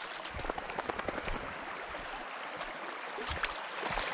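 Splashing through shallow river water: irregular small splashes and sloshes over the steady sound of the flowing stream.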